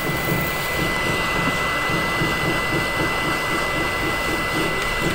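Hot air rework station blowing steadily through its nozzle onto a circuit board chip: a constant rush of air with a thin, steady high whine. It is heating the chip's pins until the solder melts.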